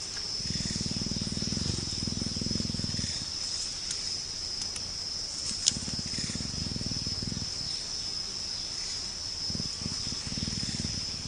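Steady high-pitched insect drone of a tropical forest, with low rumbling in stretches of two to three seconds and a single sharp click about six seconds in.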